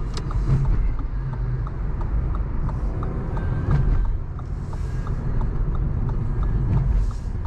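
Car driving, heard from inside the cabin: steady engine and road rumble with the regular ticking of the turn-signal indicator, as the car sets up for a right-hand exit.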